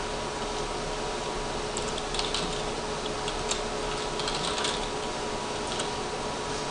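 Computer keyboard keys clicking in short runs of typing, over a steady background hiss.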